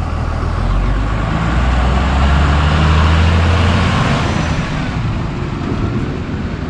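A bus drives past close by. Its engine hum and tyre noise grow louder to a peak about three seconds in, then fade back into steady roadside traffic noise.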